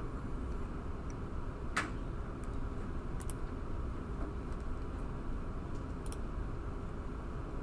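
A few short, sharp computer-mouse clicks, the loudest about two seconds in, over a steady low room hum.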